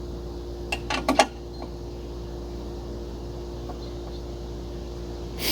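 A steady machine hum with several steady tones, broken by a few short pitched sounds about a second in and a brief hiss at the very end.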